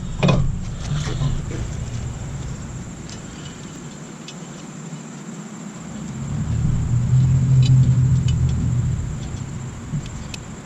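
Low rumble of a passing road vehicle: it fades away, then swells again about six seconds in and dies down, with a few faint light clicks.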